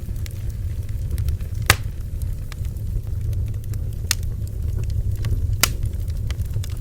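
Bonfire crackling: irregular snaps and pops of burning wood over a steady low rumble, with three sharper, louder pops among the fainter crackles.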